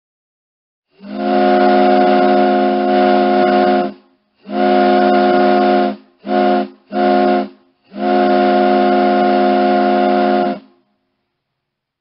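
Ship's horn sounding in a pattern of five blasts: a long one, a shorter one, two quick short ones, then another long one. Each blast is a steady chord of several deep tones.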